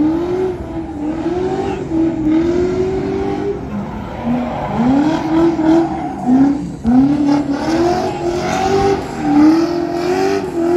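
Drift car's engine revving hard, its pitch climbing and dropping again and again as the car slides sideways through the course, over the hiss of spinning, screeching tyres.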